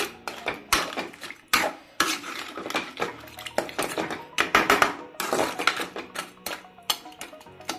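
Metal stirring spoon scraping and clinking against the sides and bottom of a metal cooking pot in irregular strokes, stirring crab curry in its watery masala gravy.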